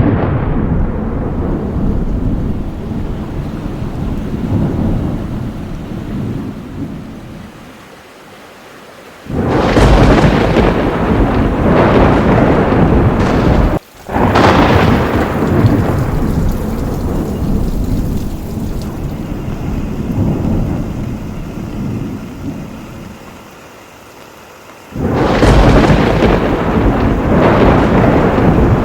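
Thunderstorm: loud claps of thunder over steady rain. A clap dies away in the opening seconds, and new ones break suddenly about nine, fourteen and twenty-five seconds in, each rumbling away over several seconds.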